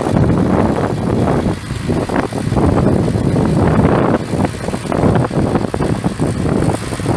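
New Holland TS115A tractor's six-cylinder diesel engine running, with wind buffeting the microphone.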